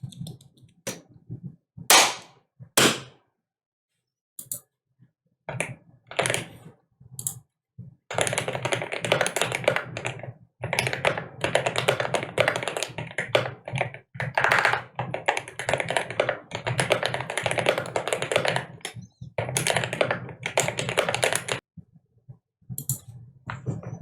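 Custom mechanical keyboard with lubed Gateron CJ and Oil King linear switches and PBT keycaps being typed on: a few separate keystrokes at first, then about fourteen seconds of fast continuous typing, then a few more keystrokes near the end.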